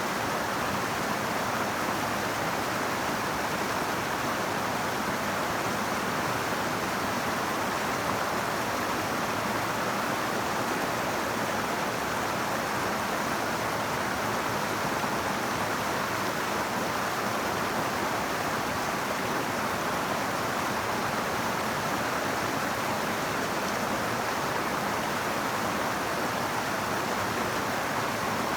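Cape Fear River water flowing, a steady even rush with no change in level.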